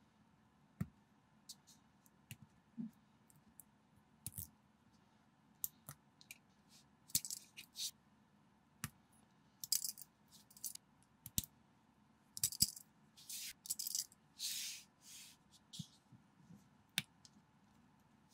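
Plastic toy bricks clicking as they are pressed together and handled: scattered sharp clicks, with short scraping, rustling plastic sounds bunched in the second half.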